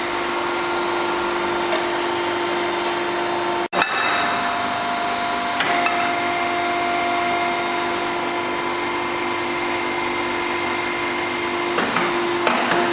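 Pipe and tube bending machine's motor running with a steady whine of several fixed pitches. The sound drops out for an instant about four seconds in, there is a click a second and a half later, and a few light knocks come near the end.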